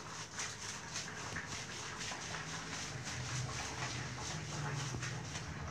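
Hands scrubbing shampoo lather into a wet cat's fur, a soft wet squishing and crackle of foam. From about two seconds in a low, drawn-out growl from the cat joins it and holds almost to the end.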